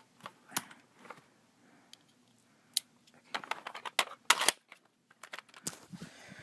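A series of sharp clicks and snaps, scattered at first, then a quick run of them about three and a half to four and a half seconds in.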